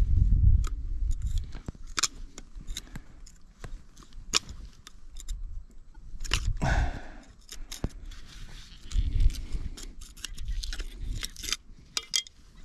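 A steel knife blade scraping and clicking against rock and gravel as it digs a target out of a crevice: a scattered series of sharp ticks and scrapes, with bursts of low rumble.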